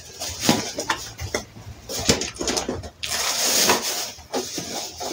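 Cardboard box flaps and plastic wrapping being handled to unpack a boxed gas stove: irregular rustling, crinkling and scraping with scattered small knocks, and a longer spell of rustling past the middle.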